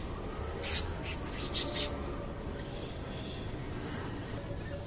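Birds chirping in short, scattered high-pitched bursts over a low, steady background hum.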